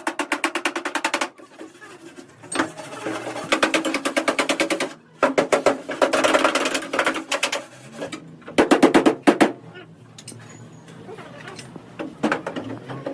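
Pneumatic workshop tool rattling in three short bursts of rapid impacts, about ten strokes a second, with noisier rasping between the bursts.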